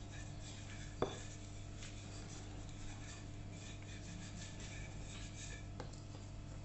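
Wooden rolling pin rolling flour-dusted dough on a countertop: faint rubbing and scraping strokes, with one sharp knock about a second in, over a steady low hum.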